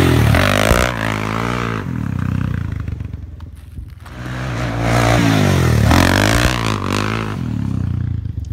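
Sport ATVs ridden hard past on a dirt trail, the first a Suzuki quad: engines revving up and down as each goes by, one pass right at the start and a second around five to seven seconds in, with a dip between. Dirt and gravel scatter under the tyres.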